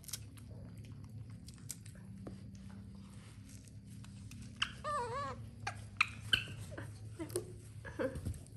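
Young macaque calling: a wavering, warbling whine about four and a half seconds in, then several short high squeaks, begging for food while being hand-fed corn kernels.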